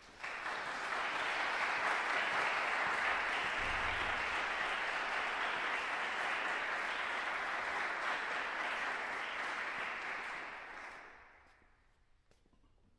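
Audience applauding, starting all at once and dying away about eleven seconds in.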